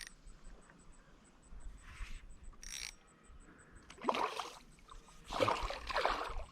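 Water splashing in several bursts, the louder ones in the second half: a hooked smallmouth bass thrashing at the surface while it is being fought on the line.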